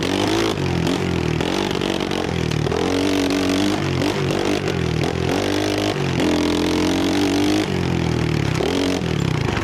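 Trailmaster 125 pit bike's small single-cylinder four-stroke engine being revved hard on a trail ride. Its pitch climbs and drops again several times as the throttle is worked through the gears.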